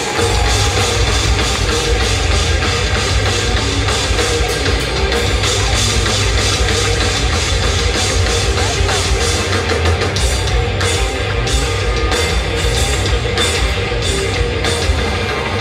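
Live hard rock band playing loud: full drum kit with heavy bass drum and cymbals, and distorted electric guitars and bass, the whole band coming in at once at the start.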